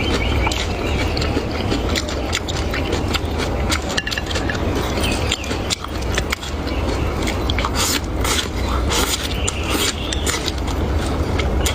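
Close-miked eating sounds: chewing and crunching food, with many small clicks and crackles, over a steady low hum.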